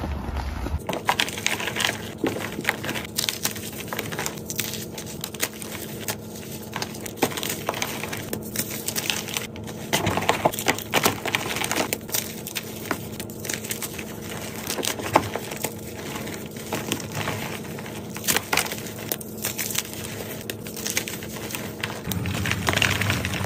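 Hands crushing and crumbling blocks of gym chalk into powder: a dense run of crisp crunches and crackles.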